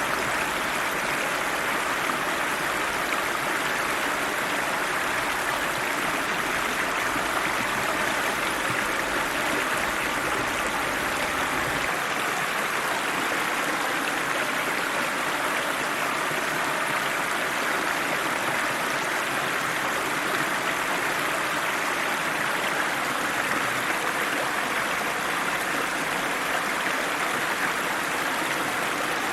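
River water rushing steadily over rocks, an even, unbroken rush of flowing water.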